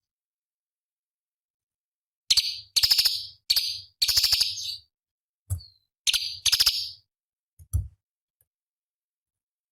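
Orange-bellied leafbird (cucak cungkok) singing harsh, rapid chattering phrases. After about two seconds of silence comes a run of short buzzy bursts, then two more just past the middle. Two soft low thumps are heard between them.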